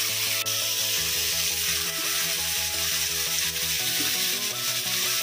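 Paneer cubes sizzling as they fry in hot oil in a kadai, a steady hiss, with background music with a pulsing beat playing over it.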